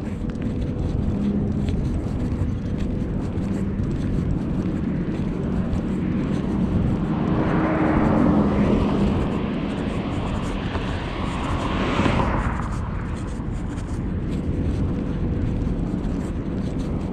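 A vehicle passing, its noise swelling over several seconds in the middle and then fading, over a steady low rumble.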